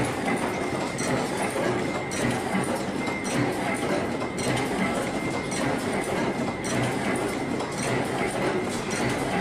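Chain-making machine running, with a dense, steady metallic clatter of small clicks over continuous machine noise and a faint steady high tone.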